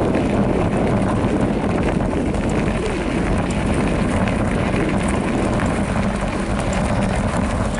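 Wind rushing over the microphone and Specialized Rockhopper mountain-bike tyres rolling fast downhill on a gravel trail: a steady, deep noise with no breaks.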